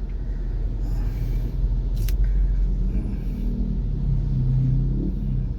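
Steady low rumble of a car driving, engine and road noise, with a single sharp click about two seconds in.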